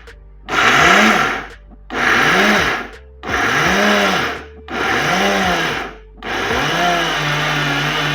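Silver Crest blender pulsed four times in short bursts, its motor pitch rising and falling with each pulse as it crushes dry roasted peanuts with no oil added. From about six seconds in it runs without stopping.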